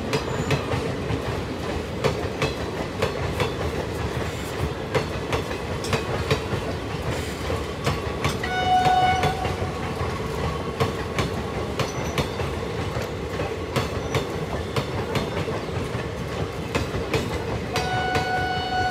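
Passenger train coaches rolling past: a steady rumble with wheels clacking over rail joints. A short, high-pitched tone sounds twice, about halfway through and near the end.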